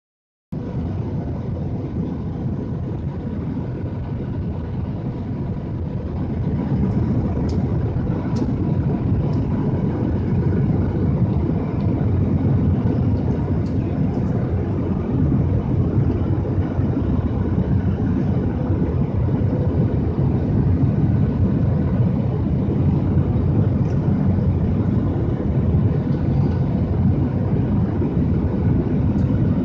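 Steady rumble of a Boeing 737-800 jet airliner coming in to land, with a faint steady hum over it; it grows louder about six seconds in.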